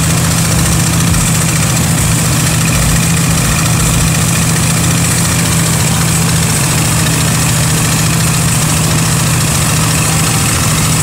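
Engine-driven rice threshing machine running steadily: a constant loud drone with an even hiss over it.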